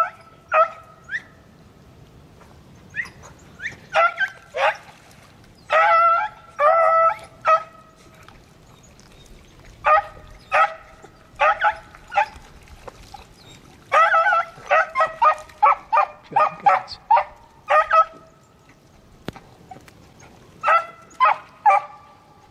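Beagles barking and baying in short, repeated bursts, the hounds on a rabbit's scent trail.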